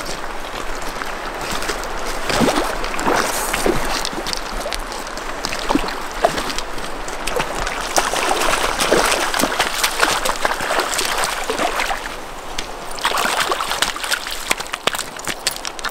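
Hooked lenok splashing and thrashing at the surface of a shallow river as it is played in and dragged up onto a pebble bank, over the steady rush of running water.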